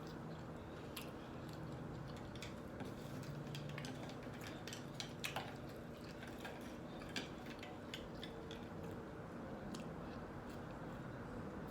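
Close-miked chewing and mouth sounds of someone eating a breakfast sandwich: a stream of small wet clicks and smacks, a few louder ones a little past five seconds in and again near seven seconds.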